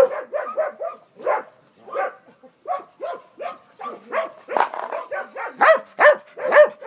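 A dog barking in quick, short repeated barks, two or three a second, louder near the end.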